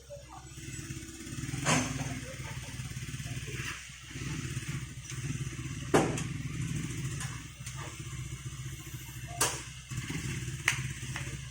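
Engine running steadily with a low hum, broken by four sharp clanks, the loudest about halfway through.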